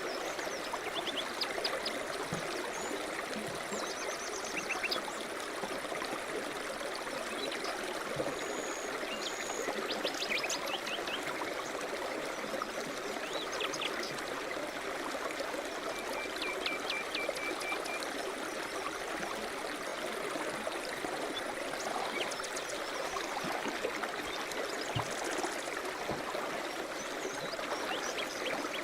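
River rapids rushing steadily, with small birds chirping and trilling now and then above the water, mostly in the first two-thirds.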